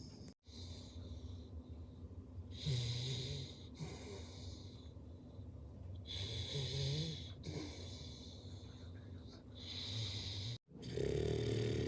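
A sleeper snoring in slow, regular breaths, each snore about a second long with a hiss over a low buzz, coming about every three and a half seconds.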